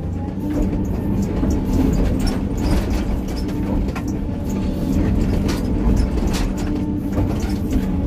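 Excavator's diesel engine running steadily under work, with scattered short knocks and clanks throughout.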